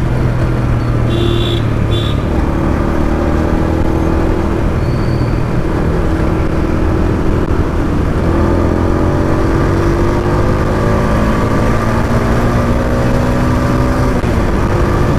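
Honda Wave motorcycle's single-cylinder four-stroke engine running steadily on the move, freshly serviced, over steady road and wind noise; its pitch climbs slowly in the second half as it gathers speed. Two short high beeps sound about a second and a half in.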